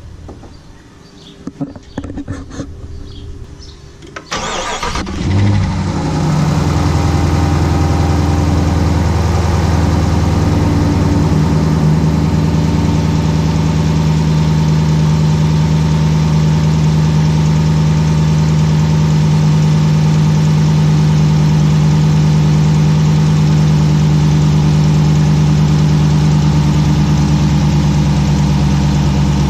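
2018 Dodge Challenger R/T's 5.7-litre Hemi V8, breathing through a newly fitted Hellcat airbox, cranks and fires about four seconds in. It flares up loudly as it catches, then settles into a steady idle. A few sharp clicks come before the start.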